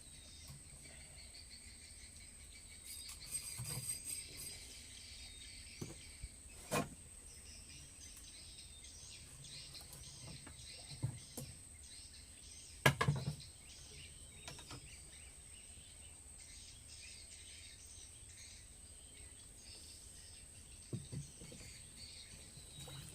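A steady high-pitched insect drone with scattered bird chirps, and a few sharp knocks, the loudest about halfway through.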